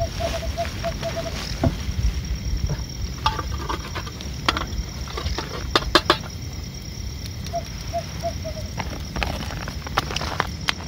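Crinkling and sharp clicks from a plastic packet being handled, loudest about six seconds in, over a low steady rumble. Twice a short run of quick high chirps from a small night animal sounds in the background.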